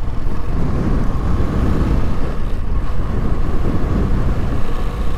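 Motorcycle riding along at a steady speed: wind buffeting the microphone over the engine's steady hum.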